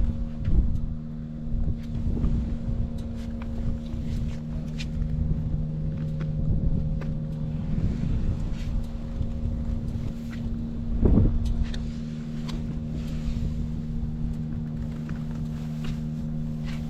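BMW R1200R boxer-twin engine idling steadily with no abnormal noise, with one brief louder surge about eleven seconds in.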